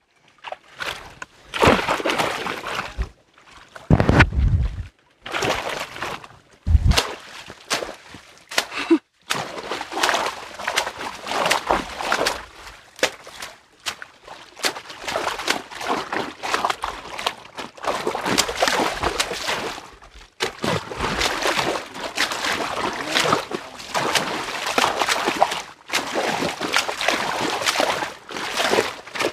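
Muddy canal water splashing and sloshing as people wade through it and beat the surface with poles to drive fish toward a net. It goes in irregular bursts, with two heavier, deeper splashes about four and seven seconds in.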